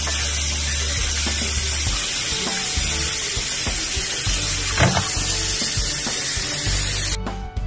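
Tap water running in a steady stream onto raw meat chunks in a plastic colander as they are rinsed and rubbed by hand. The water cuts off suddenly near the end and music with drums takes over.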